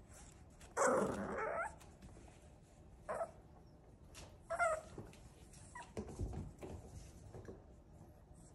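Boxer puppies, seven weeks old, giving short high barks and yips: the loudest about a second in, then shorter ones around three and four and a half seconds in, one sliding like a whine. Soft knocks and scuffles follow later on.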